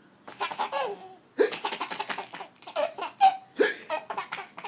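A baby laughing in bursts of rapid, high-pitched pulses, with hiccups breaking in with sudden sharp onsets.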